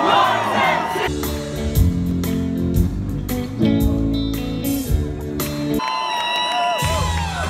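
Live rock band playing loud through the PA: electric guitar chords over bass and drums, with crowd noise and a voice in the first second. About six seconds in, the drums and bass drop out for a moment of high bending guitar notes, then the full band comes back in.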